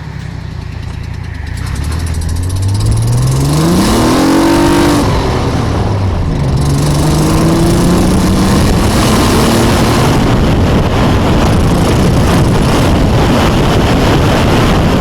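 Car engine accelerating hard after pulling out: the revs climb, drop with an upshift about five seconds in, and climb again in the next gear. Loud wind and road noise builds up as the car gathers speed.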